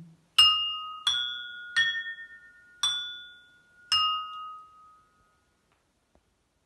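Two stemmed drinking glasses struck five times with a small stick. Each strike rings out with a clear, bell-like tone that fades over about a second, at slightly different pitches from strike to strike. The last ring dies away about five seconds in.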